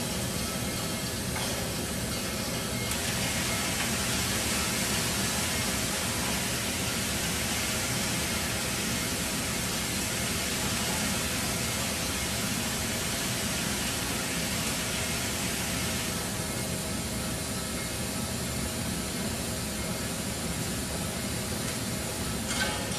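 Aerosol spray-paint can hissing steadily as it sprays a wavy line onto a moving paper roll, with steady low-pitched noise underneath. A short click near the end.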